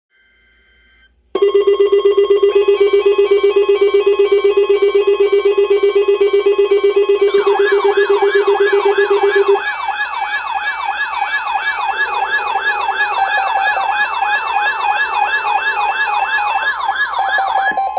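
Electronic siren and alarm tones layered together. A loud pulsing buzz with steady tones above it comes on suddenly just after the start. About seven seconds in, a fast yelp siren joins, sweeping up and down several times a second, and the buzz cuts out about halfway through.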